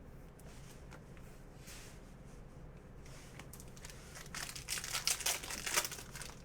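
Trading card pack wrapper being torn open and crinkled by hand, a burst of crackling rustles starting about halfway through.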